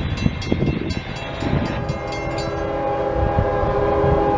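Railroad crossing bell ringing rapidly as the gates lower, stopping about two and a half seconds in. From about two seconds in, an approaching CSX freight locomotive's horn sounds one long steady chord, blown for the crossing.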